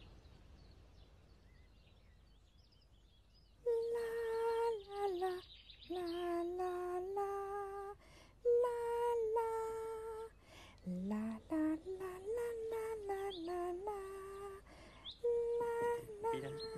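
A high voice humming a slow wordless tune in held notes that glide from one to the next, starting about four seconds in after a near-quiet opening.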